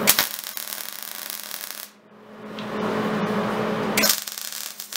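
MIG welder arc crackling as tack welds join a steel horseshoe to a sheet-metal base plate. There are two welds: the first lasts about two seconds, and the second runs from just after that to about four seconds in. A steady low hum sounds underneath.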